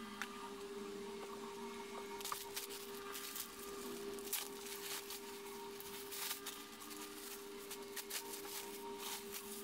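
Clear plastic packaging bags crinkling and rustling as they are handled, in irregular crackly bursts that start about two seconds in, over a steady low electrical hum.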